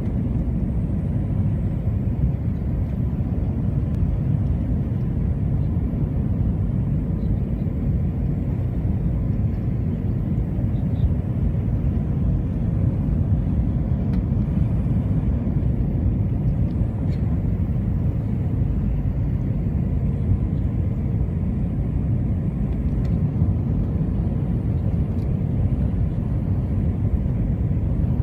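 Inside the cabin of an Airbus A321 on approach: the steady low rumble of the jet engines and rushing air, with a faint steady hum running through it.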